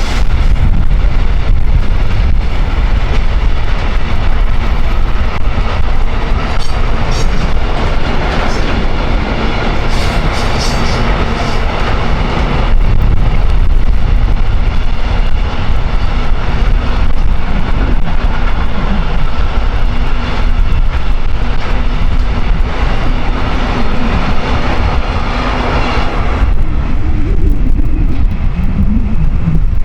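Train running past with a steady hum and rail noise, against heavy wind rumble on the microphone; the sound changes about midway and fades near the end.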